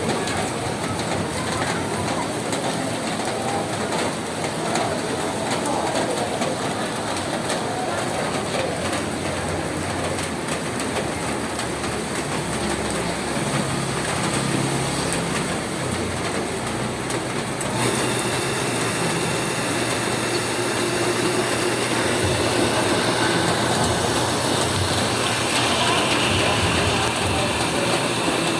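Rain falling on a roof: a steady, dense patter of drops. About two-thirds of the way through the sound changes suddenly and a faint steady hum with a thin high tone joins the rain.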